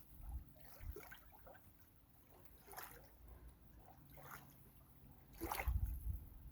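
Faint water lapping, with a few soft clicks and low rumbles that grow louder near the end.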